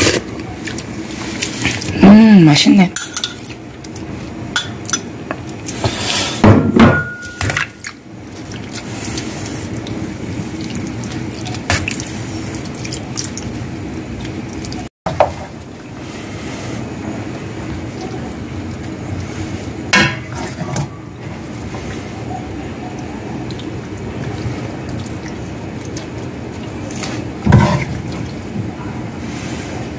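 A metal spoon stirring and clinking against a stainless steel mixing bowl of soupy food, then a ladle knocking against a cooking pot. The clinks are scattered and sharp, over a steady low hum.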